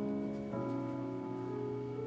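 Slow instrumental music of held chords, the chord changing about half a second in.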